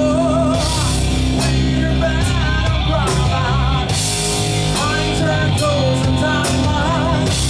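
A rock band playing live: sustained guitar and bass notes and drums with cymbals, under a melody line with heavy vibrato.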